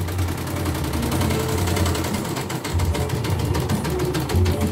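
Portable embroidery machine stitching a lettering design, its needle working in rapid, even strokes over a low motor hum that rises and falls as the hoop moves.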